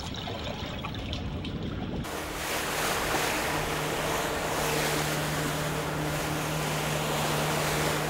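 A low rumbling noise, then about two seconds in an abrupt change to sea wind and waves over the steady drone of a boat engine.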